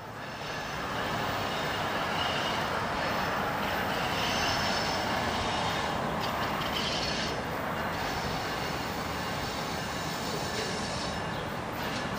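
NJ Transit electric commuter train (ALP-46A locomotive with Comet V cars) approaching around a curve: a steady rushing of wheels on rail that swells over the first couple of seconds, with faint high wheel squeal coming and going.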